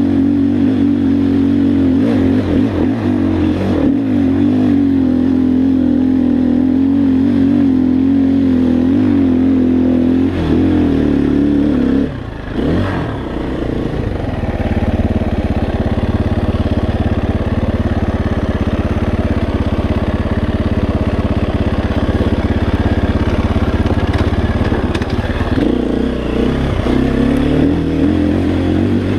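A 2016 KTM 350 XCF-W's single-cylinder four-stroke engine, fitted with a full Akrapovic exhaust, running loud and steady under throttle on the trail. About twelve seconds in, the revs dip briefly, then it pulls on at a lower, steady note.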